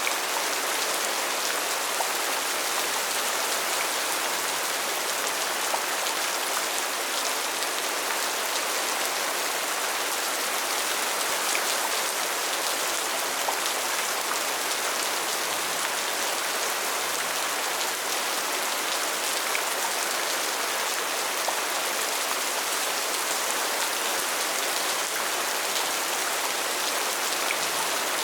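Steady rainfall: an even hiss of rain with scattered individual drops ticking.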